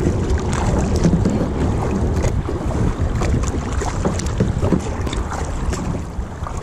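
Wind buffeting the microphone, over the splashing and dripping of a double-bladed paddle dipping in and out of the water as a sit-on-top kayak is paddled along.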